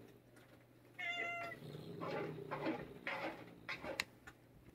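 Fierce feral cat giving a short, flat-pitched cry about a second in as a leather-gloved hand handles it, followed by several softer noisy sounds and a sharp click near the end.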